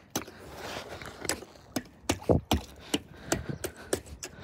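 Small knife blade stabbing down at clear ice: an irregular series of sharp ticking strikes, about two to three a second, chipping the surface.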